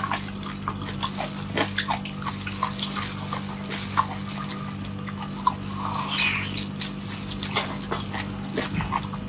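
Close-up wet chewing and mouth smacks of someone eating a sea cucumber soaked in chili oil: many small, irregular squelches and clicks.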